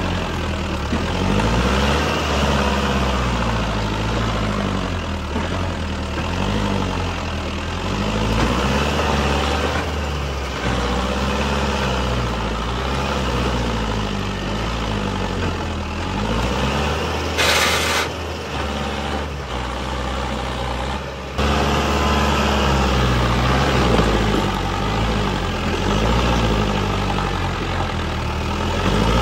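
Mahindra Arjun Novo 605 DI 4WD tractor's diesel engine working hard under load, hauling a loaded trolley through loose dirt, its revs rising and falling over and over. A short hiss sounds a little past the middle.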